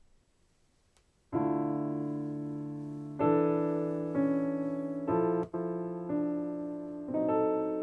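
Piano chords of a ballad intro played back through ScanSonic HD MB-2.5 loudspeakers. After a near-silent first second come six slow chords, each struck and left ringing as it fades, with a brief dropout just after the middle.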